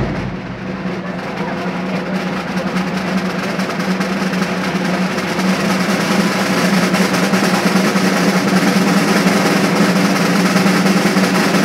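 A long, sustained drum roll with a steady low note under it, growing gradually louder before stopping abruptly.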